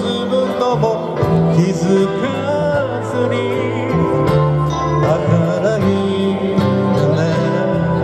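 Live band playing a song through a PA on electric guitars, drums and keyboard, with wavering melody lines over steady chords and a regular cymbal beat.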